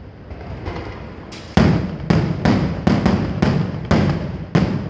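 Aerial firework shells bursting overhead: a quick series of about eight loud bangs starting about a second and a half in, each trailing off in a rumbling echo between the surrounding buildings.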